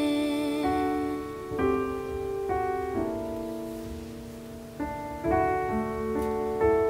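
Slow piano music, sustained chords changing about once a second.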